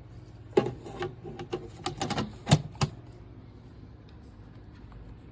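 A quick, irregular run of clicks and knocks, like hard plastic being handled, about a second long, loudest near the end, over a steady low hum.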